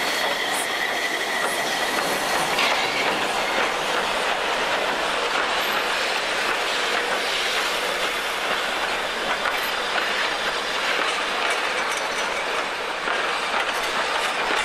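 Narrow-gauge railway carriage wheels rolling on the rails: a steady rumble with some clatter, and a high steady wheel squeal over the first couple of seconds.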